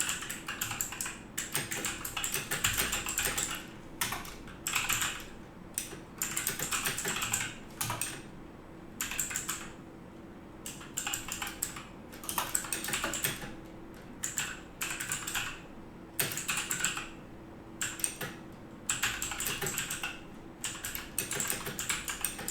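Typing on a mechanical keyboard with Outemu Blue clicky switches: rapid keystroke clicks in bursts of a second or two, with short pauses between them, picked up with the microphone a little way from the keyboard.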